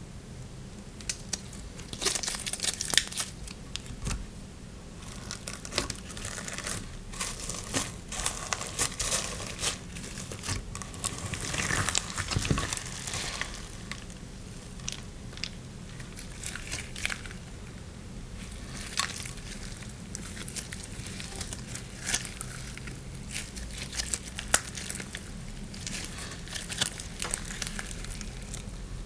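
Slime being squeezed and stretched by hand, giving irregular crackling, crinkling pops and small clicks.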